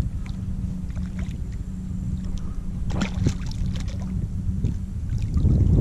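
Wind rumbling on the microphone over lapping water beside a kayak, growing louder near the end. About three seconds in come a few short splashes as a hooked redfish thrashes at the surface and a hand reaches into the water for it.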